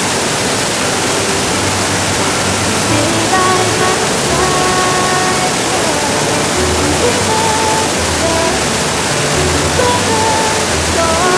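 Waterfall rushing steadily and loudly, with a faint melody of held notes over it.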